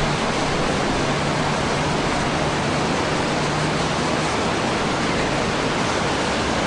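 Fast-flowing river water rushing steadily, with a faint low engine hum from a loaded dump truck that stops about two-thirds of the way through.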